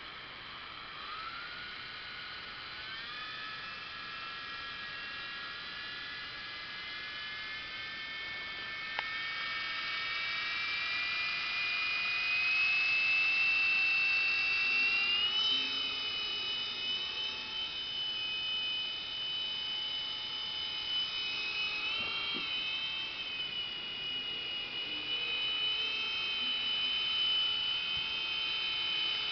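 Blade mCX2 micro coaxial RC helicopter's small electric motors and rotors whining. The whine climbs slowly in pitch over the first half as it spools up, then holds high and steady in flight, with brief dips and rises in pitch as the throttle is worked.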